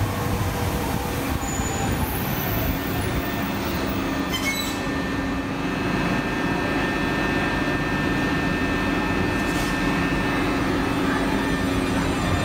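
Alstom Citadis Dualis tram-train (SNCF class U 53600) rolling slowly into a station platform, its electric traction drive giving a steady hum with whining tones over the running noise of the wheels. There is a brief, faint high squeal about two seconds in.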